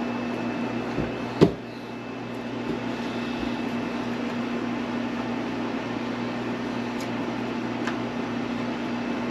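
Steady background hum of room equipment, with one sharp click about a second and a half in and two faint ticks later, as the drone's plastic camera dome is handled and pressed against the drone body.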